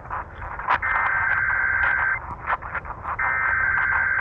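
Emergency Alert System SAME header heard over NOAA Weather Radio. Buzzy digital data bursts about a second and a half long repeat with a second of radio static between them, and two of the three header bursts fall here.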